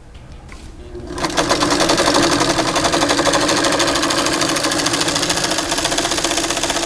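A vintage Singer 301A sewing machine starts up about a second in and runs at speed: a fast, even stitching rattle over a steady motor hum. It is the machine's first test run, and it works.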